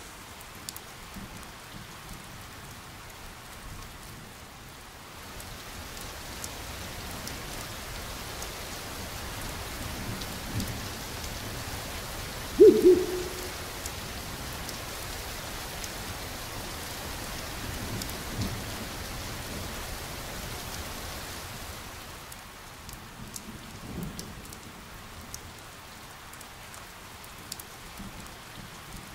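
Steady rain falling, a constant hiss throughout. About halfway through, a short, low falling tone sounds, the loudest moment, and a few fainter low thumps come and go.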